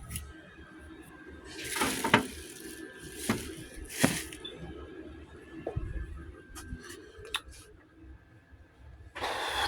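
Rummaging through small items: a few short rustles and scrapes, then scattered light clicks, over a faint steady hum.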